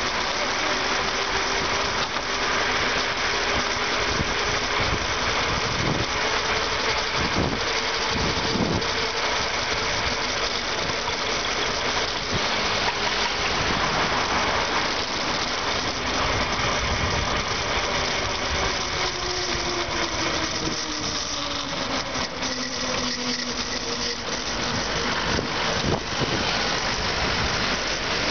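Road traffic heard from a moving bicycle: a steady rush of wind and road noise with car and motorcycle engines around it. A few knocks come early, and a passing vehicle's engine note falls slowly about two thirds of the way through.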